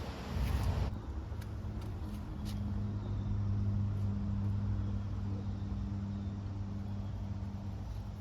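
A steady low engine hum with a few faint clicks.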